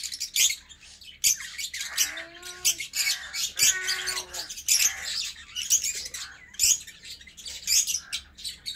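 Pet green parakeets squawking and chirping in a rapid run of short, harsh calls, with two short lower, voice-like calls about two and four seconds in.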